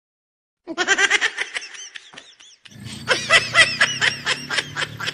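A person laughing in quick, rapid-fire bursts, in two bouts. A low steady hum starts under the second bout.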